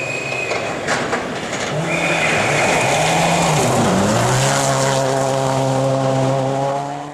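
Rally car engine at full effort, working through quick gear changes and then held at high revs as the car goes by, over a rushing of tyres on gravel. The sound cuts off abruptly at the very end.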